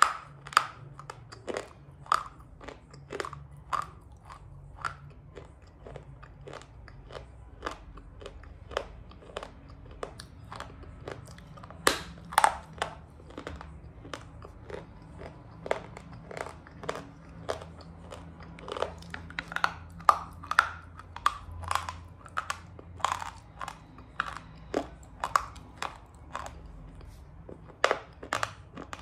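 Close chewing of a thin piece of crunchy baked shale, an edible clay: a steady run of sharp crunches about one or two a second, with a few louder bites along the way.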